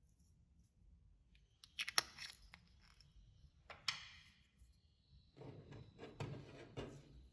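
Clear slime being squeezed and stretched by hand, giving short crackling, squelching bursts: one about two seconds in, one near four seconds, and a longer run from about five and a half to seven seconds.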